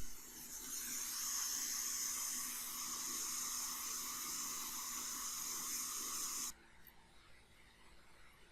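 Steady hiss of a spray or air jet used to clean a circuit board, cutting off suddenly about six and a half seconds in.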